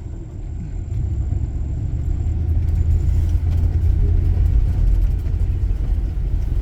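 Van driving on a rough dirt road: a low engine and road rumble that grows louder about a second in and holds steady, with faint scattered clicks and rattles over it.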